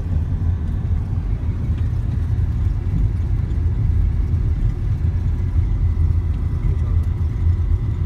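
Steady low rumble of a car driving on an unpaved gravel road, heard from inside the cabin: tyre and road noise over the engine.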